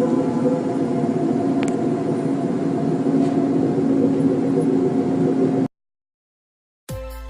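A loud, steady droning hum with several held tones over a noisy wash, of the kind passed around as an unexplained 'strange sound' in the sky. It cuts off abruptly about five and a half seconds in; after a second of silence, electronic music starts near the end.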